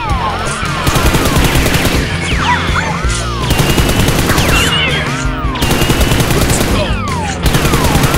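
Dubbed automatic-gunfire sound effects in several rapid bursts over background music, with swooping tones between the bursts. The gunfire is an edited-in effect laid over toy Nerf blasters, not the blasters' own sound.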